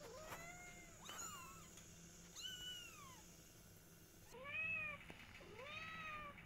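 Kitten meowing, about five short high-pitched calls, each rising then falling in pitch.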